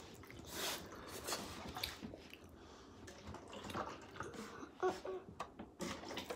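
Crab being eaten by hand: faint, scattered clicks and crackles as shell is picked apart and meat pulled off at the mouth.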